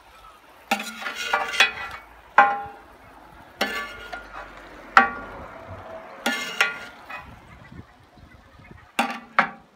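Metal spatula scraping and clanking against a hot plancha griddle and a ceramic baking dish as grilled plums are scraped up and tipped onto the quails, about seven sharp ringing scrapes spread across the stretch, over a faint sizzle.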